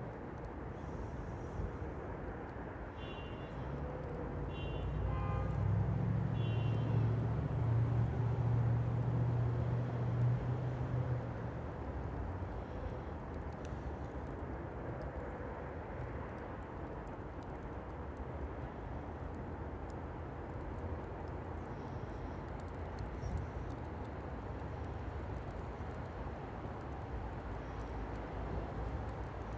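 Wood fire crackling in a fire pit over a steady outdoor background rumble. A low engine drone swells and fades over several seconds near the start. A few short high chirps come in the first few seconds.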